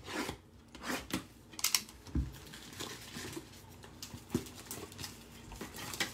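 Box cutter slitting the plastic shrink wrap on a trading-card box, then the wrap crinkling and tearing as it is pulled off, in irregular short bursts. A dull knock about two seconds in as the box or cutter is handled on the table.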